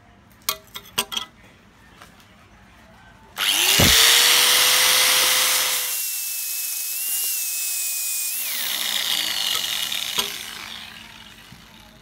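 A few light clicks, then an angle grinder switches on about three seconds in, its motor whine rising as it spins up, and its disc grinds the steel ferrule of a cleaver's wooden handle. Midway a steady high tone rings out and then drops, and the grinding fades away near the end.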